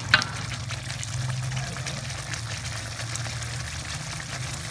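Thick peanut and chili sauce simmering in a wok, bubbling with scattered small pops as its water cooks down. A short metallic clink sounds right at the start.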